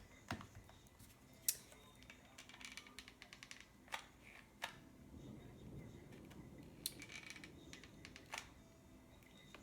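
Faint scattered clicks and taps of hard plastic being handled, as a hot glue gun is reloaded with a new glue stick. There are a few quicker runs of small ticks about three seconds in and again near seven seconds.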